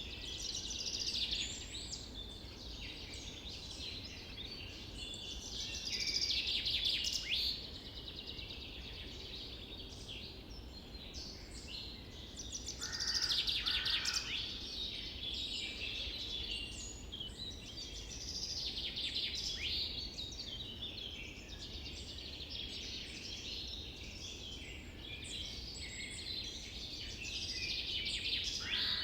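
Several wild birds chirping and calling in a busy chorus of short, high notes and trills over a steady low rumble. The calls swell louder a few times, around six, thirteen and nineteen seconds in.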